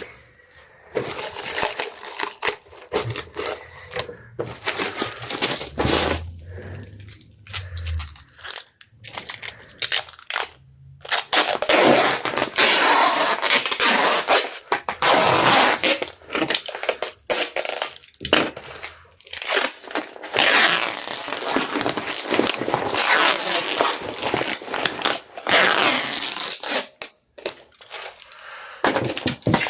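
Packing materials being handled: plastic wrap crinkling and tearing in irregular rustling stretches, with a few longer continuous pulls.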